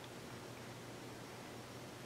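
Quiet room tone: a faint steady hiss with a low hum underneath, and no distinct sounds.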